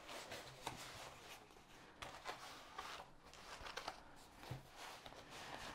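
Faint rustling and crinkling of a large diamond painting canvas and its protective film being rolled up around a foam pool noodle, with scattered small ticks and taps.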